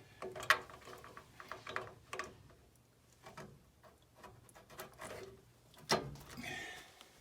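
Light clicks and rattles of wires and terminal connectors being handled while a new blower motor is wired up, with a sharper click about half a second in and another about six seconds in.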